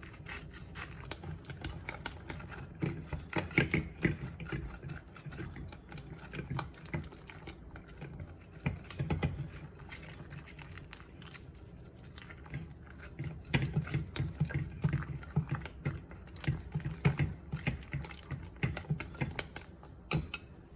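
Irregular kitchen clatter of quick knocks and clicks, with wet, liquid sounds, as food is prepared by hand.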